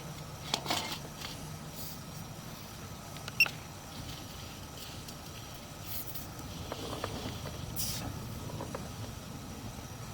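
Sewer inspection camera and its push cable being fed through a sewer pipe: a steady low hum with a few sharp clicks and light scraping knocks.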